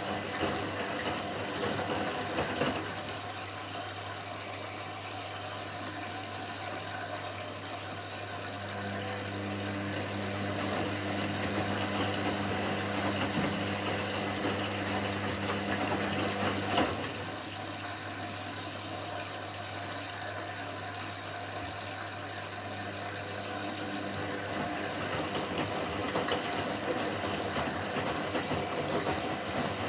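Washing machine running through its cycle: a steady low hum with water noise. A second, higher hum joins about nine seconds in and stops with a sharp click around seventeen seconds.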